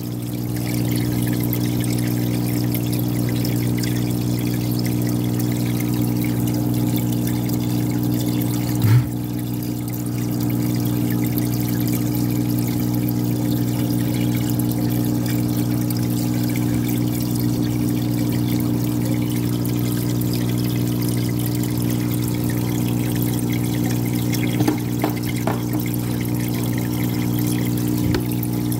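Aquarium hang-on-back filter running: a steady electric hum from its pump, with water pouring and splashing from its outflow into the tub. A brief bump about nine seconds in.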